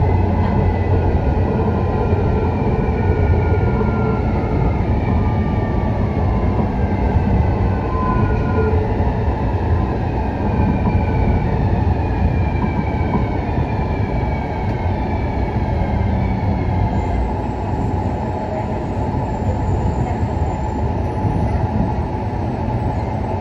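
Taipei Metro EMU101 train running on its track, heard from inside the car: a steady rumble of wheels on rail, with a series of short falling electric whines from the traction equipment over the first half or so.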